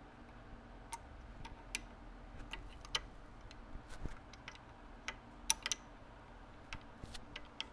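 Irregular light metallic clicks and taps as small parts inside a Winchester Model 42 shotgun's steel receiver are handled and fitted by hand.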